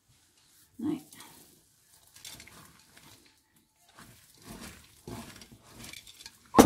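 A wooden spoon stirring thick peanut butter and chocolate chip cookie dough in a mixing bowl, scraping in several uneven strokes, with a sharp knock near the end.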